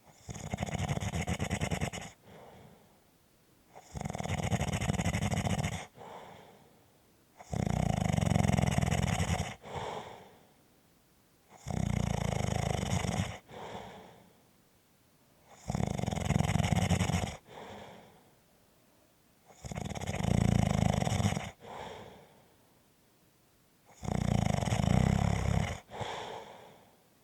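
Steady snoring: a loud snore about every four seconds, seven in all, each followed shortly by a softer, shorter breath out.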